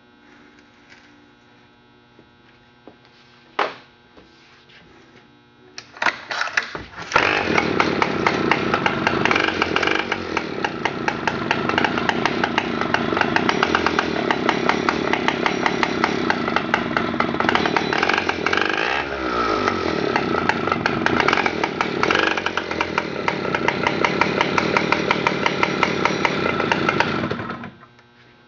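A vintage Partner cutoff saw's 90 cc two-stroke engine is started: a click, a few sputters about six seconds in, then it catches and runs loud and fast for about twenty seconds, with a brief dip in speed partway through, before shutting off near the end. It runs well despite some scuffing in its cylinder.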